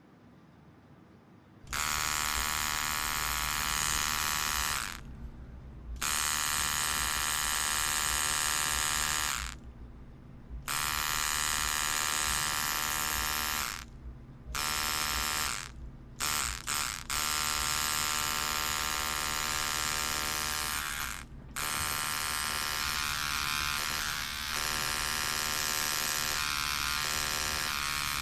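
Electric tattoo machine buzzing in runs of a few seconds, cut off and restarted several times with short pauses and a few quick taps around the middle, as the needle does the final touch-ups on a small tattoo.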